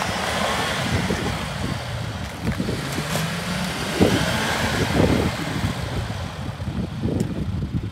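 Suzuki Vitara 4x4's engine running under load as it climbs a snowy slope, its pitch rising and falling, with a rush of tyre and snow noise over it.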